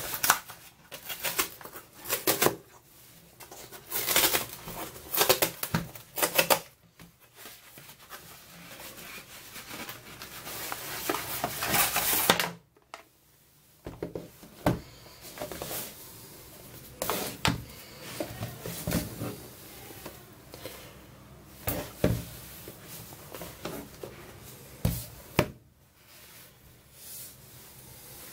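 Cardboard packaging being torn open and handled: rustling, scraping and sharp taps of an Amazon cardboard mailer and a phone box on a table. A longer tearing stretch builds up and stops abruptly about halfway through, as the mailer's perforated strip is ripped open.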